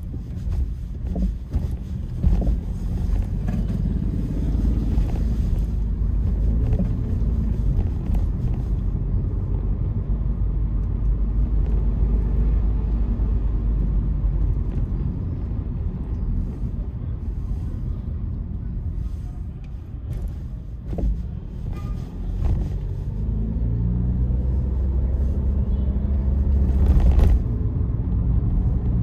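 Car driving along: a steady low rumble of engine and road noise. The engine note rises as the car speeds up about three-quarters of the way through, with a short louder noise near the end.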